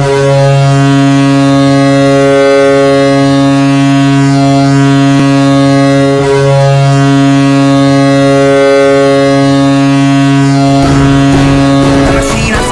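Hockey arena goal horn: one long, deep, steady air-horn blast of about eleven seconds. A wash of noise comes in near the end as the horn cuts off.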